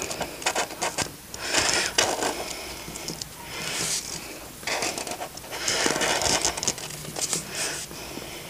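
A drawing tool scratching across paper in a series of strokes, each a noisy scrape of half a second to a second with short pauses between.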